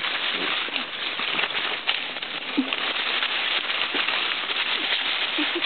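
Dry fallen leaves crackling and rustling as Italian greyhounds scuffle and wrestle through them, with a few brief low growls.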